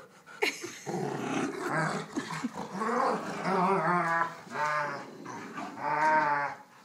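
Dogs growling in rough play over a rope tug toy, with a few longer, pitched growls in the second half.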